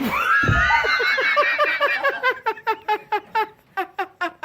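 A long, high-pitched squeal that rises, then breaks about two seconds in into rapid rhythmic laughter, about four or five pulses a second.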